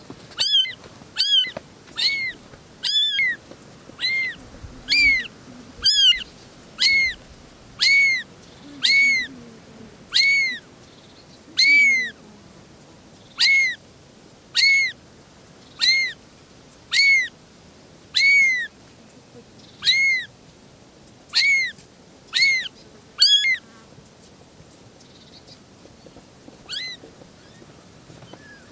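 A very young tabby kitten mewing over and over: high-pitched calls about once a second, each rising and then falling in pitch. The calls stop a few seconds before the end, leaving one fainter mew near the end.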